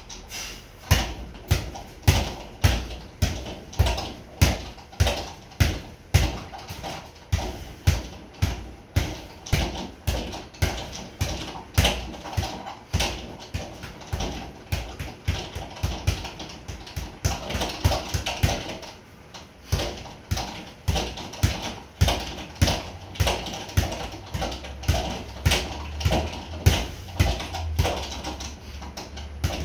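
Boxing gloves hitting a sideways double-end (kangaroo) bag in quick combinations: sharp smacks about two a second in flurries, with a brief lull partway through.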